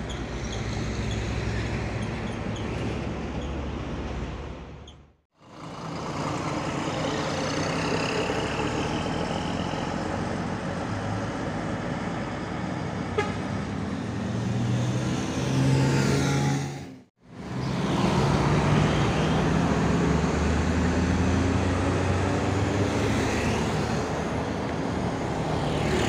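Intercity coach buses driving past through a junction in traffic, their diesel engines running loud, with a rising whine near the middle. The sound drops out abruptly twice where the clips are cut.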